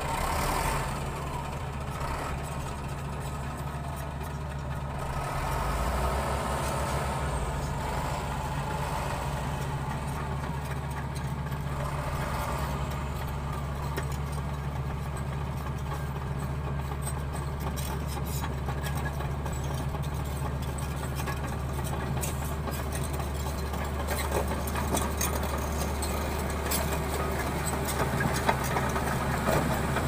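Diesel engines of heavy earthmoving machines, a Caterpillar wheel loader and a Komatsu crawler dozer, running with a steady low drone. Sharp clanks come more often in the last few seconds as the crawler dozer and its tracks come close.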